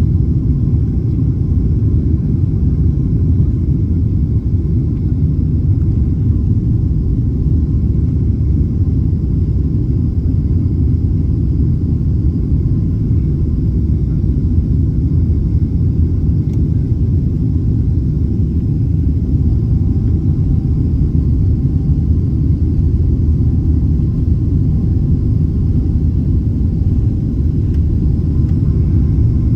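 Steady low rumble of a Boeing 777 in flight, its engines and airflow heard inside the economy cabin, with a faint steady whine above it.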